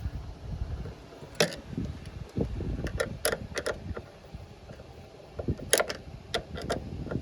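Scattered sharp clicks and light taps of hands and tools working loose the lid fittings on a Dometic CFX3 fridge, over low handling noise.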